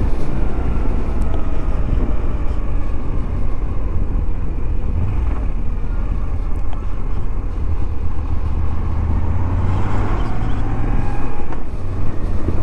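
Moto Guzzi V85TT's air-cooled transverse V-twin running as the motorcycle is ridden, under a steady low rumble of wind and road noise.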